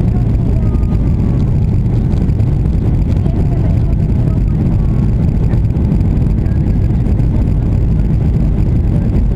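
Steady low rumble of a jet airliner's engines and airflow heard inside the passenger cabin during the descent.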